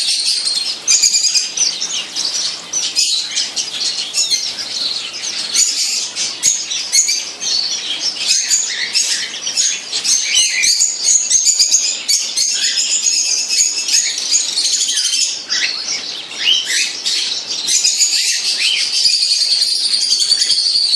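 Many small birds chirping and trilling at once, a dense continuous chorus of high chirps.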